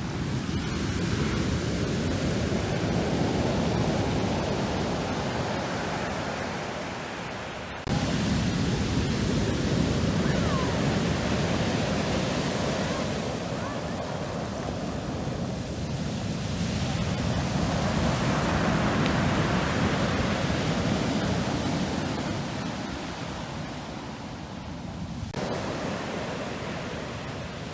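Black Sea surf: waves breaking and washing on the shore, swelling and falling away every few seconds. The sound changes abruptly about eight seconds in and again near the end.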